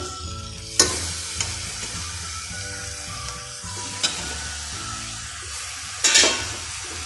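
Onion-and-spice masala sizzling in hot coconut oil in a pressure cooker as raw beef pieces go in and are stirred with a steel spoon. A steady hiss of frying runs under three sharp clatters: about a second in, at about four seconds, and a longer one near six seconds.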